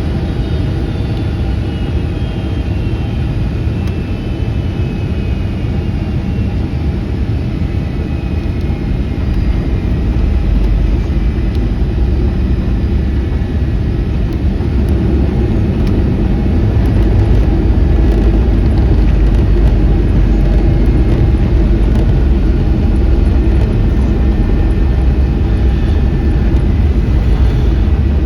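Boeing 757-200 heard from inside the passenger cabin: a steady low rumble of engines and airflow that grows louder about ten seconds in and again a little past halfway. A faint whine falls in pitch over the first several seconds.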